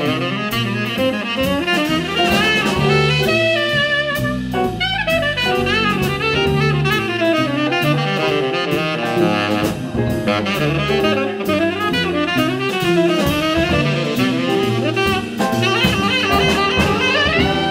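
Large jazz ensemble playing live: a saxophone plays a fast, winding line with wavering pitch over bass and drum kit with cymbals.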